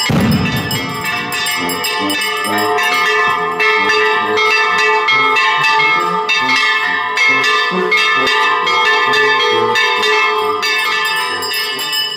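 Church bells ringing in quick repeated strokes, their tones overlapping and ringing on, with a heavy stroke at the start.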